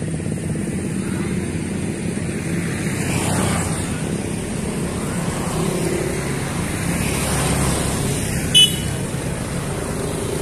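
Road traffic: a motor scooter's engine running close by while cars drive past, with one short horn beep near the end.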